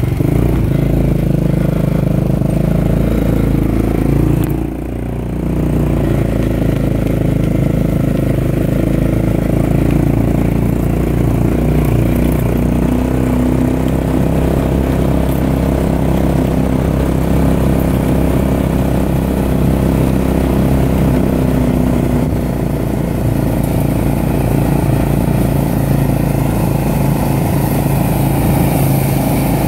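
An engine running steadily at a constant speed, with a short dip in level about five seconds in.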